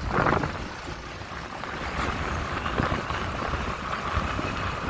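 Wind and road noise from a moving motorbike or scooter, with a steady low engine rumble underneath. About two seconds in, a faint steady higher tone joins the noise.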